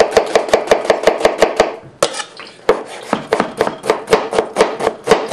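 Kitchen knife chopping an onion on a plastic cutting board: a fast, even run of knocks, about six a second, with a brief pause about two seconds in before the chopping resumes.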